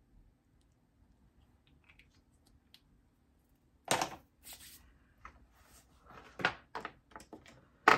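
Makeup products and their plastic cases clicking and knocking as they are handled and picked through on a table. A quiet first half, then a string of sharp clicks and knocks from about halfway in.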